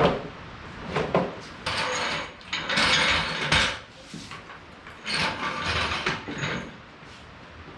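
Plastic body panels of a ride-on toy vehicle being handled and fitted: a sharp knock at the start and another about a second in, then two longer stretches of scraping and rattling.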